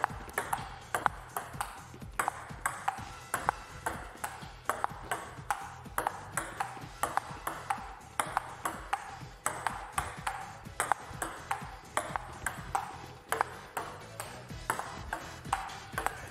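Table tennis ball struck back and forth in a long, fast rally, with sharp ticks of the ball on the paddles and the table two to three times a second.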